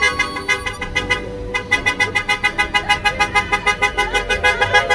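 Car horns honking. A held honk lasts about a second and a half, then gives way to a rapid, even string of short toots, about eight a second.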